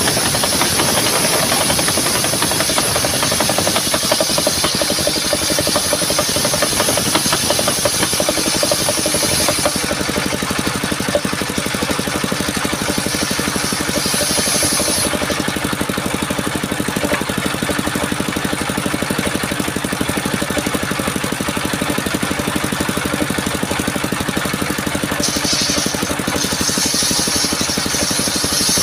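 Engine-driven portable circular sawmill running steadily while sawing a coconut-palm trunk into beams. A high hiss from the blade in the wood is strongest for the first ten seconds, returns briefly in the middle, and comes back near the end, over the steady drone of the engine.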